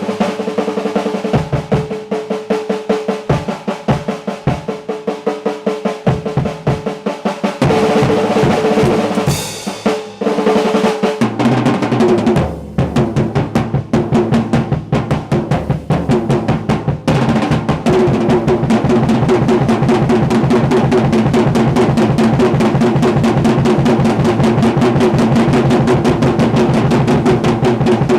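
Drum kit played solo: fast rolls on the snare drum with dense rapid strokes, and the bass drum coming in steadily about eleven seconds in.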